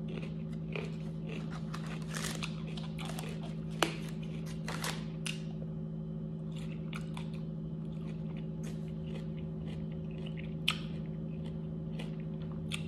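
A person biting and chewing fried takeout food close to the microphone, irregular crunches and mouth sounds with a couple of sharper clicks. A steady low hum runs underneath.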